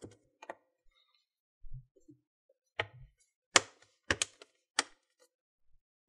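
Retaining clips of a laptop's bottom cover snapping into place as its edges and corners are pressed down: a series of about six sharp clicks, mostly in the second half, with a few soft thumps of hands on the case. The clicks mean the cover is seated.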